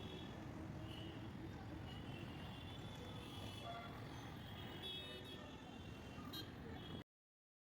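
Steady road traffic noise with faint high tones now and then, cutting off abruptly about seven seconds in.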